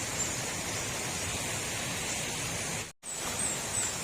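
Steady rush of flowing river water, with faint short high chirps from birds or insects over it. The sound cuts out for an instant about three seconds in.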